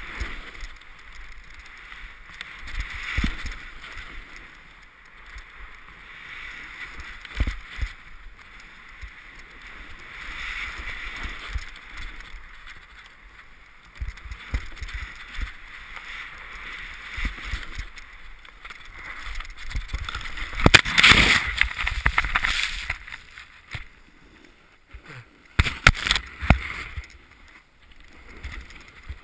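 Ski or snowboard edges hissing and scraping through snow on a downhill run, swelling and fading with the turns, loudest in a long scrape a little past two-thirds of the way in.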